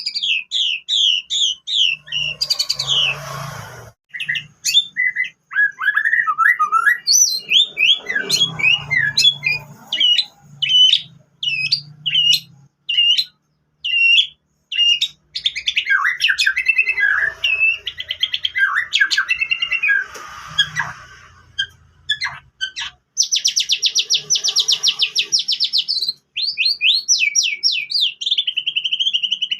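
White-rumped shama singing a long, varied song of whistled notes, slurred phrases and fast trills, mixed with mimicked canary phrases; a rapid dense trill comes near the end.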